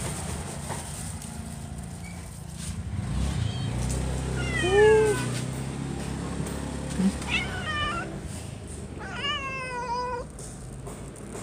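A street cat meowing three times: a falling meow about four and a half seconds in, a short one near eight seconds, and a longer one around nine to ten seconds. A steady low hum runs underneath.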